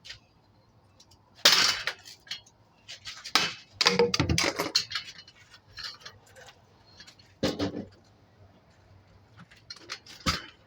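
Irregular metallic clanks and knocks from a ceiling fan being taken apart, with a few sharp hits spread over several seconds, a quick cluster about four seconds in, and smaller clinks between them.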